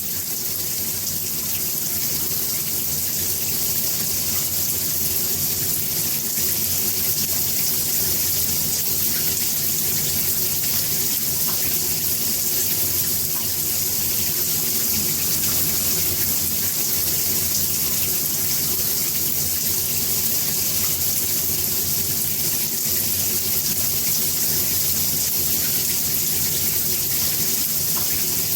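Bathroom shower running steadily: a constant hiss of water spray falling and splashing, with no change in flow.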